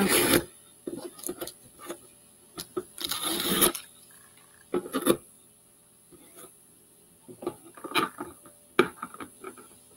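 Fingernails scratching and picking at a paper sticker on a cardboard box to peel it off, in short irregular scraping and peeling noises, the longest about three seconds in.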